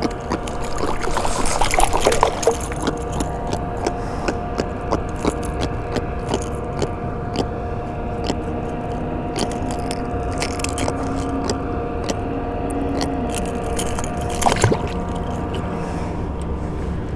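Small clicks, scrapes and rattles of tackle as a jack crevalle is handled and worked off treble hooks in a kayak. There are louder scuffles about two seconds in and again near the end, all over a steady mechanical hum.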